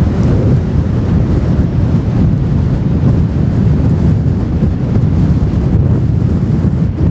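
Strong wind buffeting the microphone: a loud, steady, low rumbling noise with no clear tone in it.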